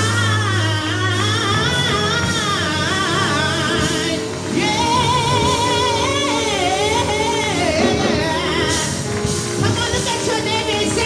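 Gospel music: singers holding long, wavering notes with heavy vibrato over a steady instrumental backing.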